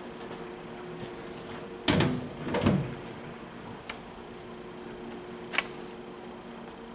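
A hinged metal cover door on a lathe's end-gear housing banged shut with a loud clang about two seconds in, with a second clattering knock just after. A couple of light clicks follow, over a steady faint hum.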